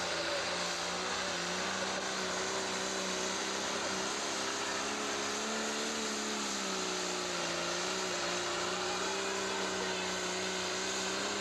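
Pro stock pulling tractor's turbocharged diesel engine running flat out under load as it drags a weight-transfer sled, a steady drone whose pitch sags a little about six seconds in and then holds.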